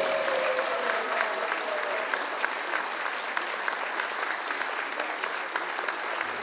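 Audience applauding in a hall: steady clapping that goes on evenly throughout.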